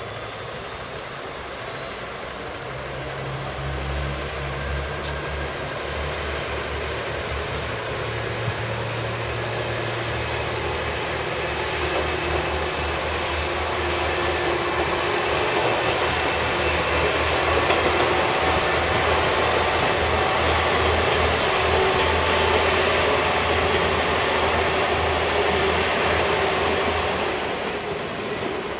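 KiHa 47 diesel railcar pulling away under power, its diesel engine drone and wheel-on-rail rumble growing louder toward the middle and fading near the end.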